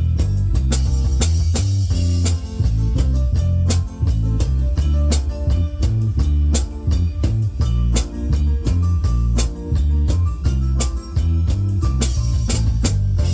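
A live band playing with guitar, drum kit and a heavy bass line on a steady beat.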